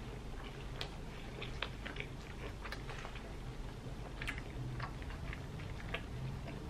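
A person chewing a mouthful of bread-roll sandwich, with irregular wet mouth clicks and smacks.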